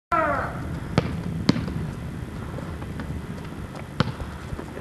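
A basketball bouncing on an asphalt driveway: single separate bounces, two about half a second apart a second in, then another near the end. A brief voice sounds just at the start.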